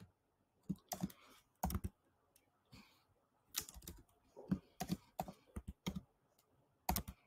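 Typing on a computer keyboard: a dozen or so separate keystrokes in small clusters with short pauses between them.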